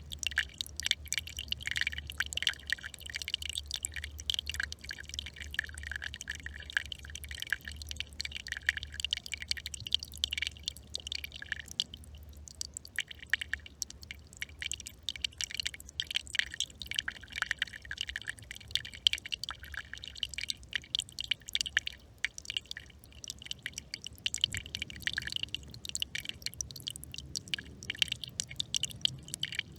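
Small brook trickling over stones: a dense, irregular patter of quick drips and splashes, with a low steady hum underneath.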